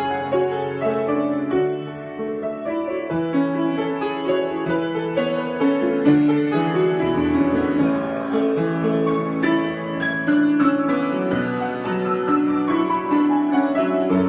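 Solo piano improvisation: chords and a moving melody over sustained low bass notes, played continuously.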